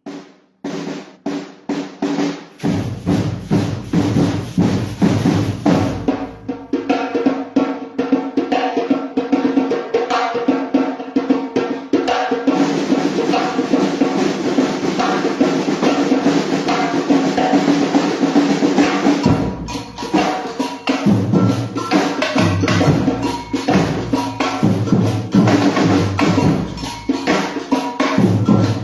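Batucada samba percussion band drumming: a few sharp strokes open, then the deep bass drums come in and the whole band plays a dense, driving rhythm with sharp high strokes over it. The bass drums drop out briefly about two-thirds through, then come back.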